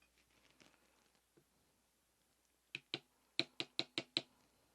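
A quick run of about seven light, sharp taps: a pair, then five more evenly spaced. They come from fitting and tapping an oil seal into a Honda Super Cub engine case during a rebuild.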